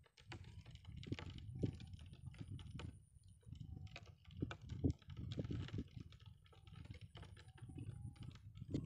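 Irregular soft clicks, taps and rustles close to the microphone over a low rumble, like handling noise.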